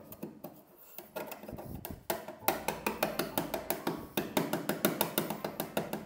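A steel putty knife scrapes and clicks against the painted steel side of a refrigerator, chipping off paint blistered by rust underneath. Background music with a steady beat and bass comes in about halfway through.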